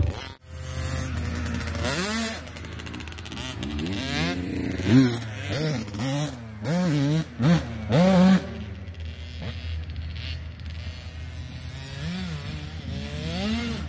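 Small dirt bike engines revving, rising and falling in pitch over and over as the bikes ride the track. The revving eases off past the middle into a steadier, quieter running.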